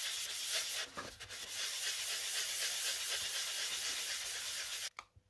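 800-grit wet-and-dry paper being rubbed by hand over a polyester fibreglass cowl with soapy water: a steady, hissy sanding rub. It stops abruptly near the end.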